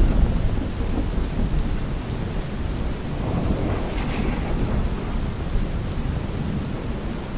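Steady rain with a low rumble of thunder that is loudest at the start and eases off over the first few seconds.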